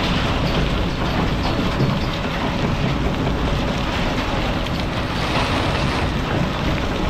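Excavator's diesel engine running hard while a bucketful of rock and soil pours into a steel dump-truck bed: a continuous rumble mixed with the rush and scattered clatter of falling stones.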